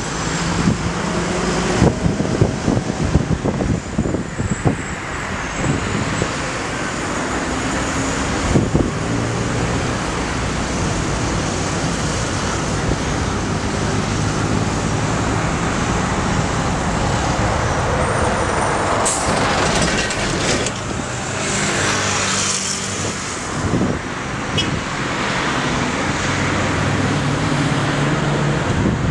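Road traffic on a city avenue: cars and trucks passing with their engines running, a steady wash of tyre and engine noise.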